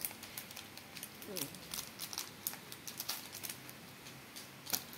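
Crinkling of a Pokémon booster pack wrapper and the light clicks and rustles of trading cards being pulled out of the pack and handled.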